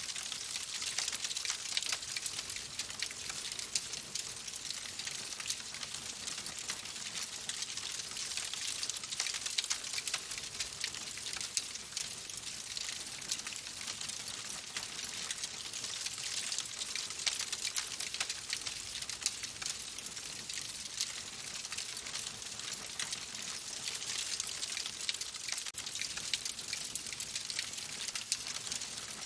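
Wood fire burning in a fireplace: a steady hiss of flames with a constant scatter of small, quick crackles and pops from the burning logs.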